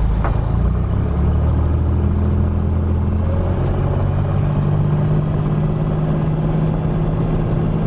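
Cessna 182 Skylane's piston engine and propeller running at takeoff power during the takeoff roll, heard from inside the cockpit. The steady engine drone steps up in pitch about three seconds in, then holds.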